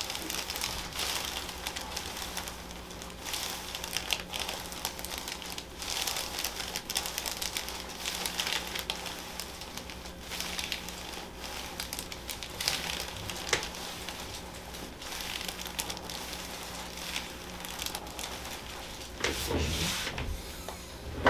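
Irregular crinkling and rubbing: handling noise as the patient is worked on at the treatment table, with many small uneven crackles over a faint steady hum, and a louder rustle near the end.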